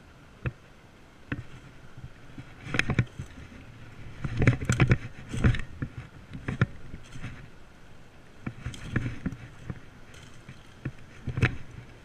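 Irregular crackling rustles and knocks in several short clusters: footsteps and movement over dry leaves and rocks, over a steady low background hiss.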